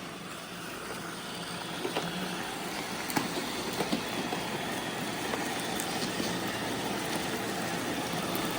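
Several robot vacuums running together, a steady whirring hum, with a few scattered sharp clicks.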